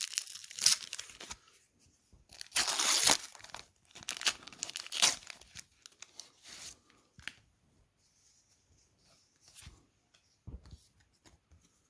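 A foil trading-card pack torn open, with several loud rips and crinkling of the wrapper over the first seven seconds. Then the cards are handled quietly, with a short low knock near the end.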